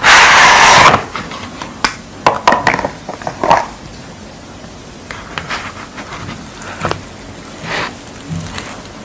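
Packaging being ripped and pulled off a plastic takeaway tray of sauced fried pork: a loud tearing rustle for about a second, then crinkles and clicks of the wrapper and tray. After that come quieter handling sounds as the saucy meat is lifted from the tray by hand.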